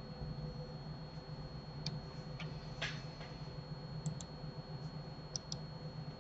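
Computer mouse clicks: about seven short clicks starting about two seconds in, some in quick pairs, over a steady low hum.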